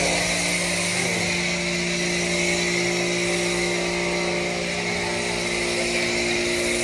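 Pressure washer spraying detergent foam through a foam cannon onto a car: a steady hiss of spray over the even hum of the washer's motor and pump.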